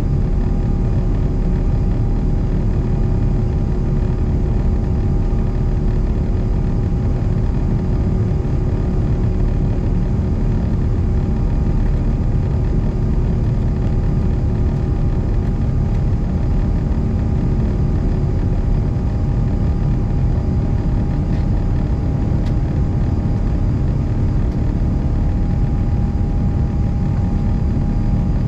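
Inside the cabin of an Airbus A350-900 with its Rolls-Royce Trent XWB engines at takeoff power: a loud, steady rumble of engines and airflow with a steady hum over it, and a lower hum that fades about halfway through.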